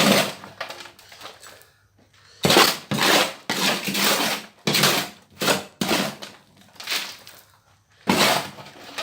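Loose, dry dirt being scooped and scraped with a hand trowel in a wooden box: a series of about eight short, gritty scrapes with brief pauses between them.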